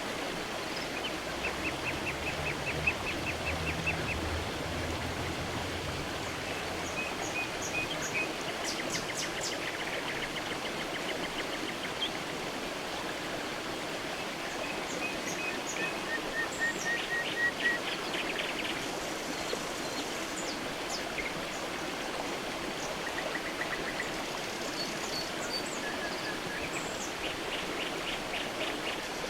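Creek water running steadily, with small birds calling over it: quick trills and short chirps scattered throughout, and a low rumble in the first few seconds.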